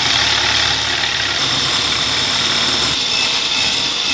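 Electric hand blender with a wire whisk attachment running steadily, a whir with a high whine, as it whips egg whites in a stainless steel bowl into a meringue.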